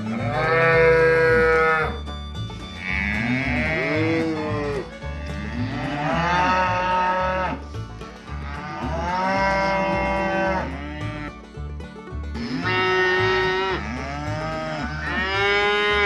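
Cattle mooing: a series of long moos, one every two to three seconds, some deep and some higher-pitched.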